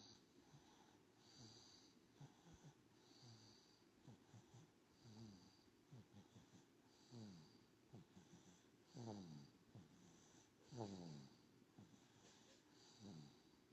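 Faint noisy breathing of a newborn baby: snuffling and snoring through the nose every second or two, with a few short falling-pitch grunts in the second half.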